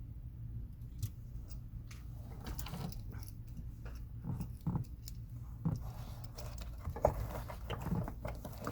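Irregular clicks, light knocks and rustling of hands handling car interior parts and tools, with a sharper knock about seven seconds in, over a low steady hum.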